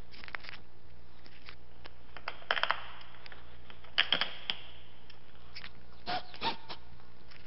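Sharp plastic clicks and knocks from hands working at a Yamaha NMAX scooter's floorboard panel, coming in several short clusters, with a couple of brief squeaks near the end. A steady low hum runs underneath.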